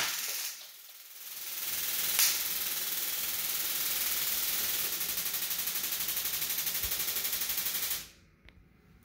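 TASER Pulse+ running its electrical cycle after firing: a rapid, steady crackle of electric pulses that builds up about a second in and cuts off suddenly near the end.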